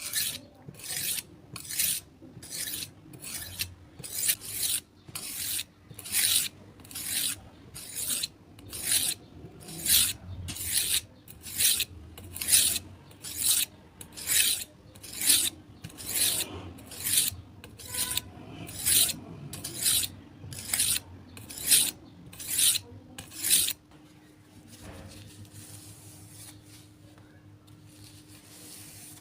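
Steady, even strokes of a blade scraped across a sharpening abrasive, about one and a half a second, harsh and rasping. They stop near the end, leaving a faint hiss and a low hum.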